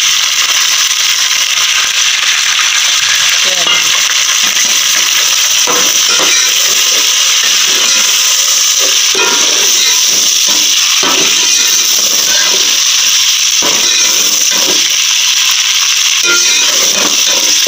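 Wet, freshly washed chicken pieces sizzling in hot oil with browned onions in an aluminium pot, a steady hiss. A metal ladle stirs them, with irregular scrapes and clinks against the pot.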